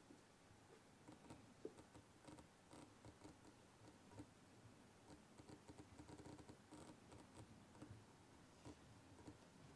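Near silence broken by faint, scattered light scratches and ticks: a shedding leopard gecko's feet on paper towel as it crawls.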